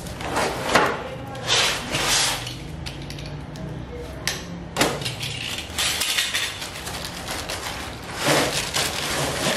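A cardboard fan-blade box being slit open with a box cutter and its end flap torn back: several irregular bursts of slicing, ripping and scraping cardboard.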